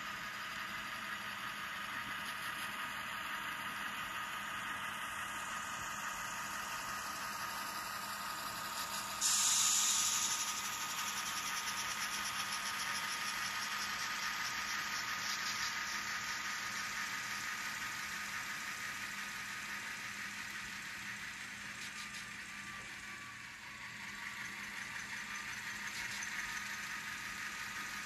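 Sound decoder of an N scale Bachmann GE Dash 8-40CW model locomotive playing diesel engine sound through its tiny speaker as the locomotives run. There is a sudden short burst of hiss about nine seconds in.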